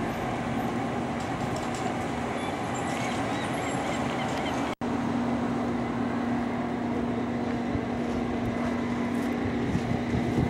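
Steady outdoor background noise with a constant low mechanical hum. The sound cuts out for an instant a little under halfway through, and the hum is a little stronger after that.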